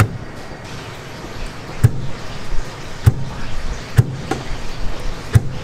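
Four sharp knocks with a low thud, irregularly about a second apart, over a steady background din.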